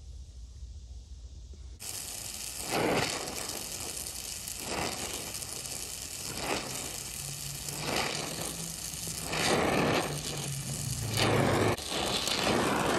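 Oxy-acetylene brazing torch flame hissing steadily from about two seconds in, swelling louder every second and a half or so.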